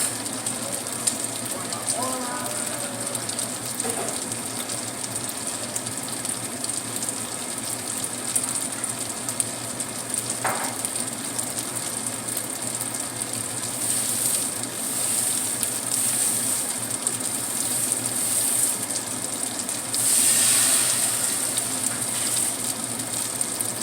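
Pieces of tofu frying in hot oil in a pan: a steady sizzle with fine crackling. It swells louder about twenty seconds in.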